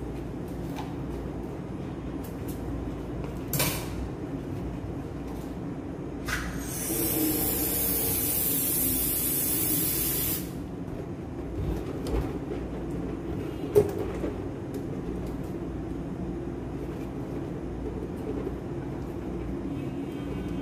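Helium hissing out of a cylinder valve into a latex balloon for about four seconds, starting about six seconds in. Short clicks of handling before and after, over a steady low hum.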